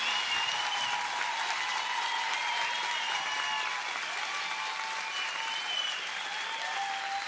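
Live concert audience applauding steadily, with thin wavering whistles over the clapping.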